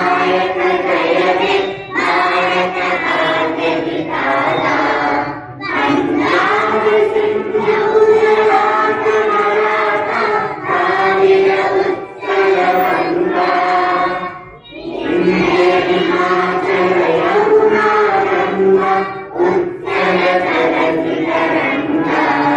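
A large group of schoolchildren singing a prayer together, phrase after phrase, with short breaks for breath between the lines.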